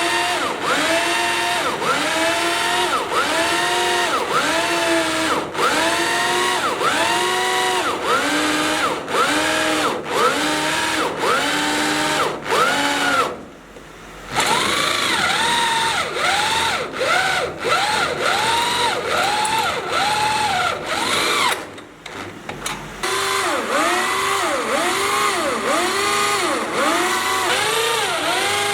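Electric power drill drilling through steel, its motor pitch dipping and recovering over and over, about once a second. It stops briefly twice, once about halfway through and again about two-thirds of the way in, then runs on.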